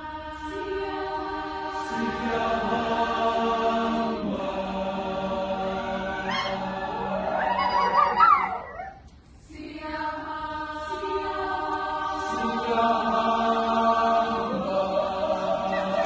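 Large choir singing long, held chords, with a short break about nine seconds in before the singing starts again.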